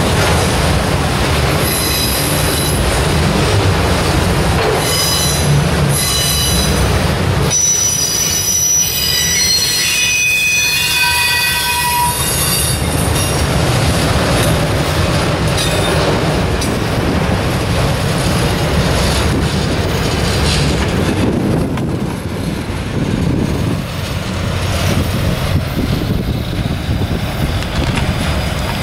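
Freight train of autorack cars rolling past close by with a steady low rumble. Several high, steady wheel squeals come in the first half. The noise eases somewhat as the last cars go by.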